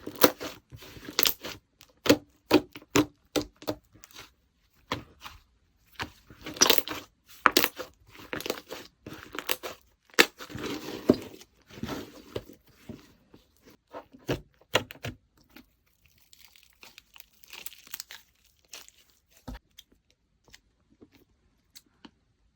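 Slime being squished, folded and stretched by hand, giving a run of sharp pops and crackles that thin out and grow fainter after about fifteen seconds.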